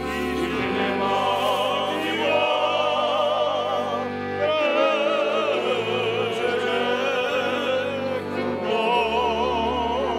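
Men singing a folk song with a fiddle band of violins and a double bass. The voices and violins carry a wavering melody over long low bass notes that change every couple of seconds.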